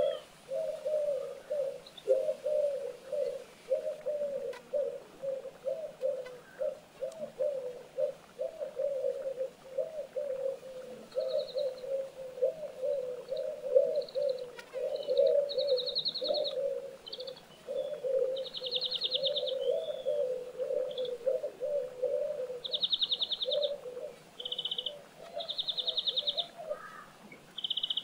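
Birds calling: a continuous run of short, low calls overlapping one another, joined about eleven seconds in by higher, rapid trills of about a second each.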